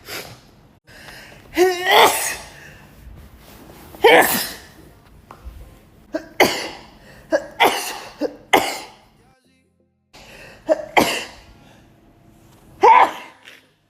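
A woman's sneezing fit: a string of loud sneezes one to two seconds apart, the first led in by a rising, pitched 'ah' intake.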